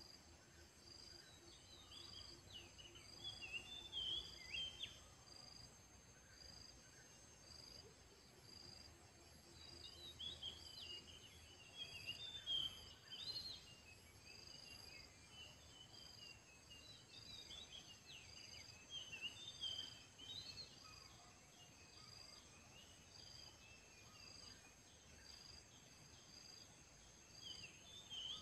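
Yellow-vented bulbul chirping in bursts of quick, rising and falling phrases, over a steady high insect drone with a short pulsing call about once a second.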